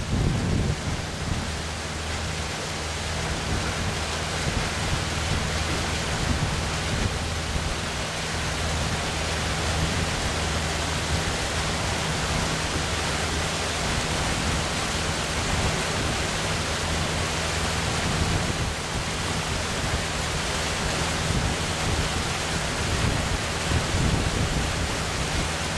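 Steady rushing noise of water and wind along a moving boat, with a low steady drone underneath.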